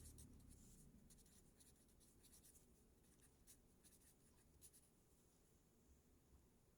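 Near silence with faint, scattered scratches of handwriting strokes.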